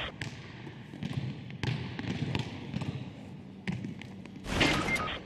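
Basketballs bouncing on a wooden gym floor, a string of separate bounces, with a louder half-second noisy burst about four and a half seconds in.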